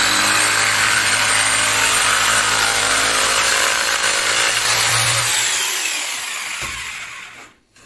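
Jigsaw cutting through a wooden board, running steadily at speed. Over the last two seconds its pitch and level fall away as the cut finishes and the motor stops.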